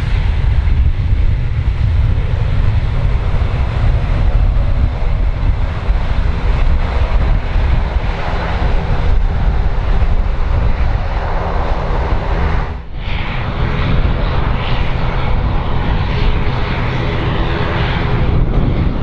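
Boeing 737-800's twin jet engines running loud, with heavy wind buffeting the microphone. About thirteen seconds in the sound breaks off for a moment and an ATR 72-600 turboprop's engines take over, still with strong wind noise.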